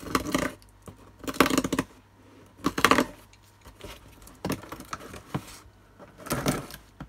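Packing tape on a cardboard box being slit with a knife and handled: about six short scratchy rustles, roughly a second apart.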